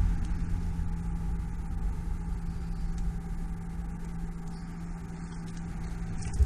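Van's diesel engine idling steadily, a constant low hum, with some low handling rumble as the camera moves through the cab.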